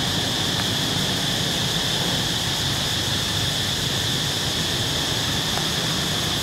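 Steady outdoor background noise: a constant high hiss over a low rumble, with no distinct events.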